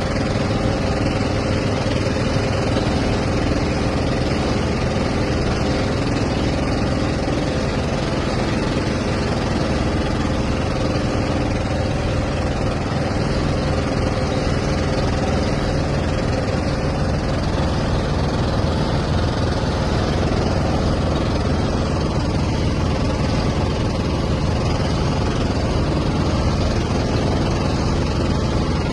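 An engine running steadily at an even speed, with a constant hum.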